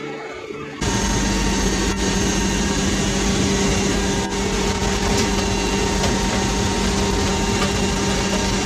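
Loud, steady engine drone and rushing air inside the hold of a cargo aircraft with its rear ramp open in flight. It starts suddenly about a second in and holds level.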